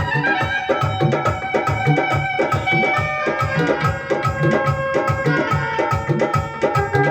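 Instrumental break in a Bengali song: a steady drum beat under a held melody, with no singing.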